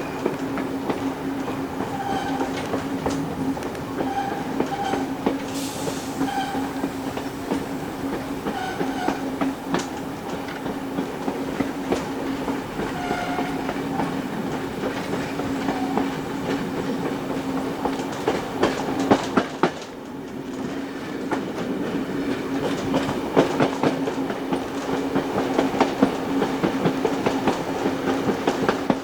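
Passenger train hauled by steam locomotive 3801 running along the track, with a steady hum and wheels clicking over the rail joints. It briefly grows quieter about twenty seconds in.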